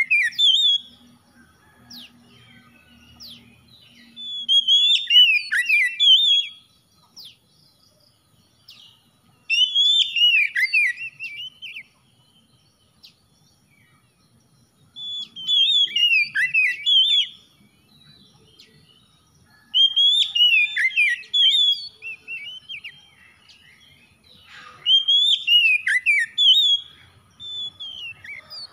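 Oriental magpie-robin singing: loud, fast, whistled phrases that rise and fall, each about two seconds long, repeated about five times with pauses of a few seconds between them.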